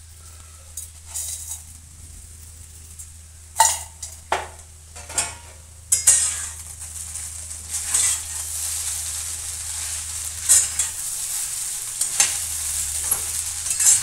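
Metal spatula stirring and scraping sago-pearl khichdi in a steel kadhai over low heat, with a light sizzle. A few sharp metal clinks come about four to five seconds in. After that the stirring and scraping run steadily.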